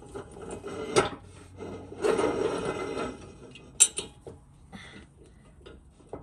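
Steel-on-steel handling of a rear axle shaft and the steel press plates on a hydraulic shop press. There is a sharp knock about a second in, then about a second of scraping as metal slides against metal. A sharp clank follows, then a few lighter knocks.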